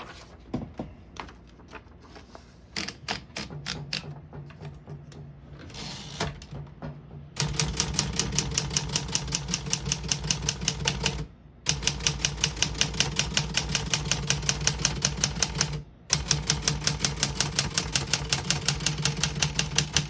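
1957 Remington Letter-Riter manual portable typewriter being typed on: slow, scattered keystrokes at first, then about seven seconds in fast, even runs of key strikes that pause briefly twice.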